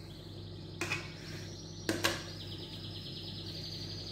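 A bird trilling steadily at a high pitch in the background, with two short knocks about one and two seconds in, over a low steady hum.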